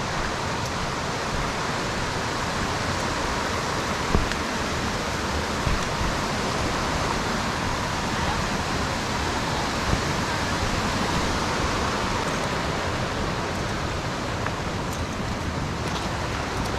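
Steady rushing of Millard Creek, swollen in high flow after a heavy storm. A few faint knocks sound over it, the clearest about four seconds in and again near ten seconds.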